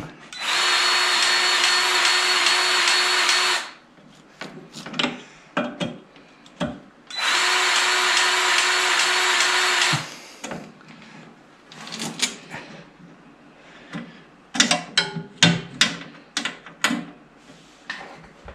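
Battery-powered grease gun motor running in two steady bursts of about three seconds each, pumping grease into the snowmobile's rear suspension grease fittings. Scattered clicks and knocks follow in the second half.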